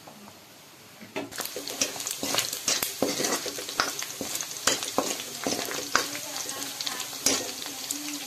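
Meat sizzling in hot oil in an aluminium wok while a steel ladle stirs and scrapes against the pan, with many sharp clicks and pops. The frying starts about a second in.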